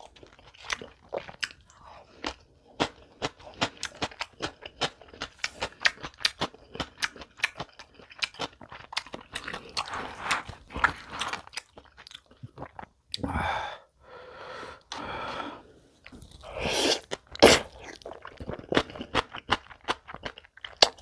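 Crunchy food being bitten and chewed close to the microphone, a rapid run of crisp crunches, with a few longer, louder rushing sounds about two thirds of the way through.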